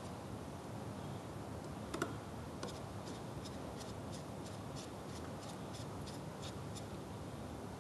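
Flat-blade screwdriver turning the brush cap on an Ingersoll Rand ES60P electric screwdriver. There is a click as the blade seats about two seconds in, then a run of light ticks, about three a second, for some four seconds.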